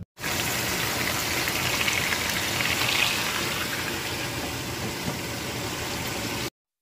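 Tofu blocks frying in hot oil in a glass-lidded pan: a steady, dense sizzle that starts right after the opening and cuts off suddenly near the end.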